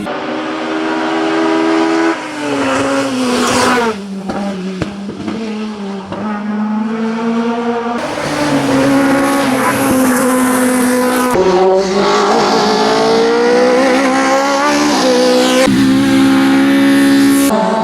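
Opel Kadett E hillclimb race car's four-cylinder engine at full throttle. The revs climb and drop sharply at each gear change, fall away as the driver lifts about four seconds in, then pull hard again from about eight seconds, with further upshifts near the end.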